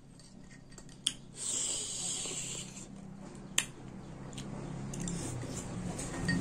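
Metal spoons clicking against a glass bowl of mulberries, with one sharp clink a few seconds in. Near the end comes a mouthful of mulberries being chewed close to the microphone.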